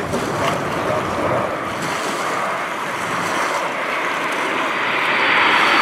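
Formation of Aermacchi MB-339 PAN jet trainers, each with a single Rolls-Royce Viper turbojet, passing overhead: a steady rushing jet roar that grows louder near the end, with a faint high whine falling in pitch.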